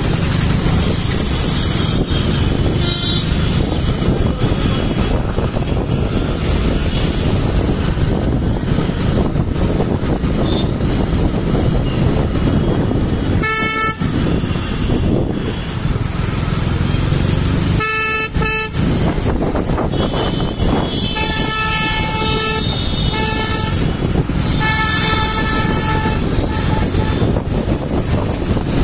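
Street traffic heard from a moving two-wheeler: a steady engine and road rumble, with vehicle horns honking. There is one short honk about halfway, two more shortly after, then a longer stretch of repeated honking.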